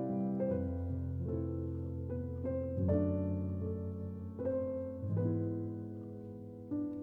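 Background music on piano: slow, soft chords and melody notes, each struck and left to ring and fade.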